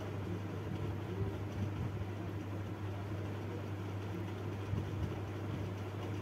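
Steady low hum over an even hiss of room noise, unchanging throughout.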